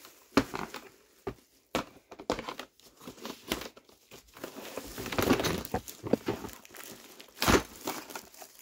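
Plastic packaging film and bubble wrap crinkling as hard white plastic organizer panels are lifted and moved, with scattered clicks and knocks of plastic against plastic; a sharp knock near the end is the loudest sound.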